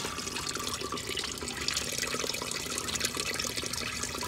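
Flush water rushing and swirling steadily in a Tofino toilet bowl, fed by a tank that is set loose on the bowl and leaking badly.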